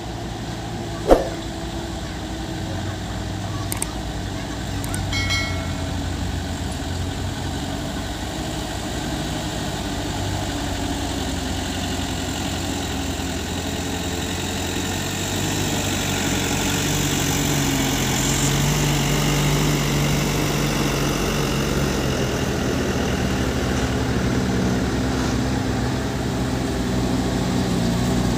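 Diesel engines of a line of light sand dump trucks, a Hino Dutro among them, running along a gravel road, growing louder as the trucks come near. A single sharp knock about a second in.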